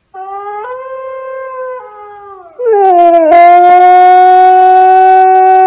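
Husky howling. A quieter howl, which is the husky video playing on the phone, wavers and slides down. About two and a half seconds in, the husky lying by the phone joins with a much louder, long, steady howl.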